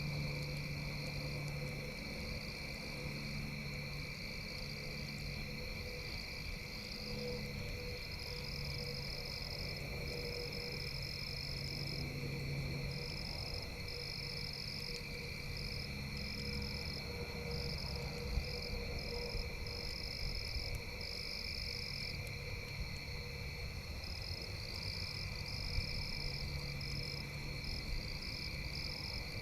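Night chorus of frogs and insects: steady high trilling from insects, a higher chorus pulsing on and off, and low frog calls that come and go. Two brief sharp pops stand out, about two-thirds of the way through and near the end.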